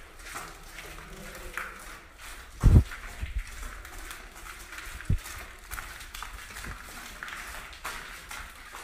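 Footsteps and shuffling of people walking through a narrow earthen tunnel. There is a loud low thump a little under three seconds in and a smaller one about five seconds in.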